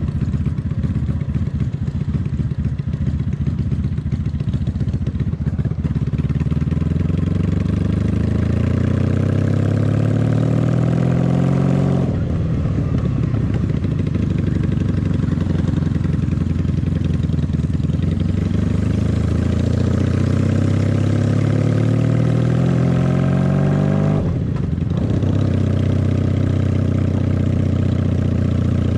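Honda Magna VF750's V4 engine under way on the road. It runs rough and low at first, then climbs in pitch as the bike accelerates. The pitch drops sharply at an upshift about twelve seconds in, climbs again for another twelve seconds, drops near the end and holds steady.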